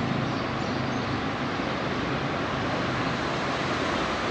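Steady city road traffic noise: an even wash of cars passing, with no single vehicle standing out.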